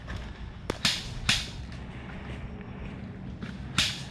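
Four scattered sharp snaps of airsoft gunfire, about a second in and again near the end, over a low steady rumble.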